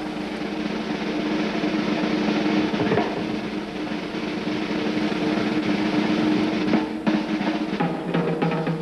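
Circus band snare drum roll over a low held chord, building suspense during a trapeze act. About seven seconds in, the roll gives way to separate sharp hits.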